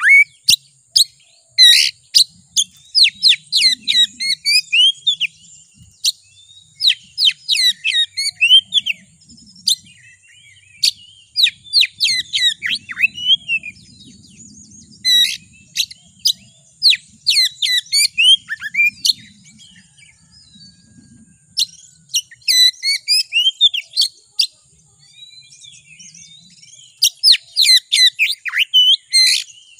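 Oriental magpie-robin (kacer) singing: loud runs of quick, sharp whistled notes, many sliding downward, in phrases of a second or a few seconds with short pauses between.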